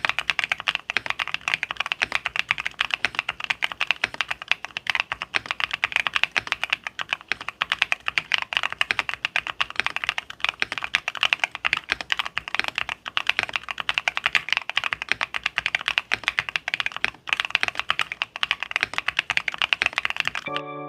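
Fast, continuous typing on a Monsgeek M3 Pro mechanical keyboard with BSUN green switches: a dense stream of keystroke clacks with brief pauses now and then.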